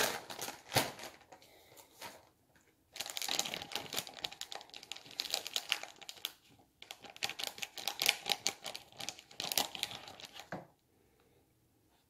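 Plastic cheese packaging crinkling and crackling as it is opened and handled, in two long stretches with a short break between, preceded by a couple of sharp clicks.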